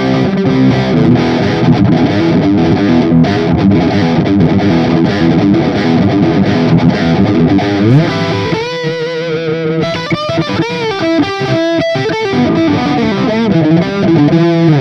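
Les Paul electric guitar played through distortion: dense riffing, a slide up the neck about eight seconds in, then single lead notes with bends and wide vibrato, going back to fuller playing near the end.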